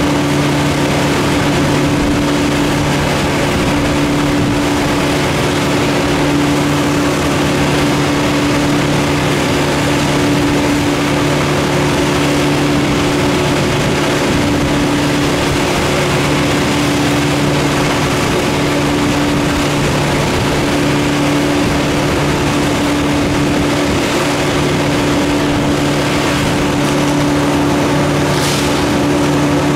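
An engine running steadily at constant high speed, with an unchanging hum and no rise or fall in pitch.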